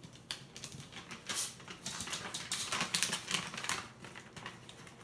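A small dog's toenails clicking and tapping on a hard laminate floor as it hops and turns about, a quick irregular run of clicks that is busiest a little past halfway.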